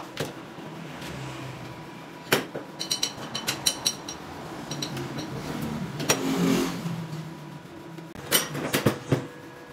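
Stainless steel parts clinking and knocking against each other and the workbench as they are handled and fitted, some clinks ringing briefly. A broad rising and falling noise swells about six seconds in.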